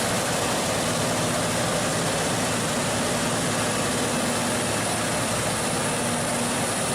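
John Deere CP690 cotton picker running: a steady, unbroken machine noise of engine and harvesting gear at work.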